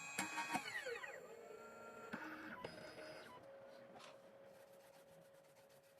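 CNC key cutting machine finishing a cut: a few clicks, then the cutter spindle's whine falls in pitch as it spins down. A faint steady hum follows and stops about four seconds in.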